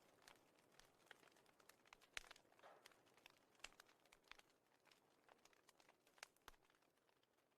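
Near silence: faint room tone with scattered small clicks at irregular intervals.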